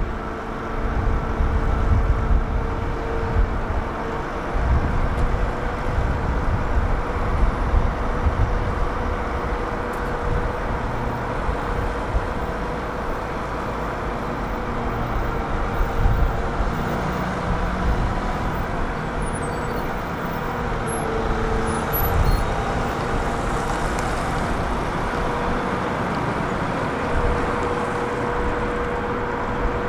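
Large diesel excavator engine running steadily, with a held mid-pitched tone over a low rumble.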